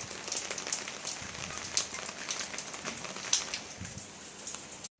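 Steady rain falling, with individual drops ticking sharply close by.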